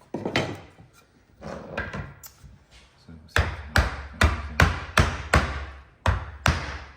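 Wooden shouldered housing joint being knocked together with repeated blows. After a quieter start, about nine sharp, evenly paced knocks come from about three seconds in, two or three a second.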